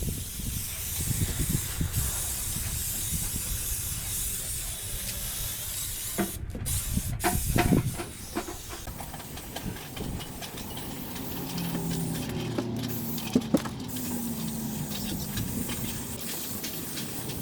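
Aerosol can of 3M headliner spray adhesive spraying with a steady hiss in long bursts, with short breaks about a third of the way in and again past two thirds. A few knocks sound around the middle.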